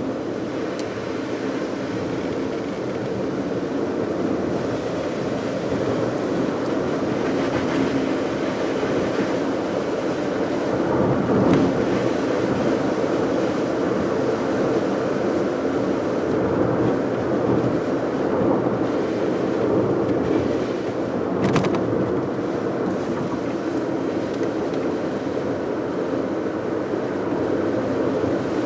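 A car driving on a rain-wet road: steady tyre and road noise with the engine under it, and a brief sharper sound about 11 seconds in and another about 21 seconds in.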